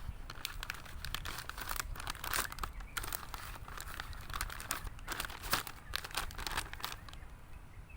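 A ration self-heating pouch crinkling and rustling irregularly as it is handled and a can of rice is pushed inside.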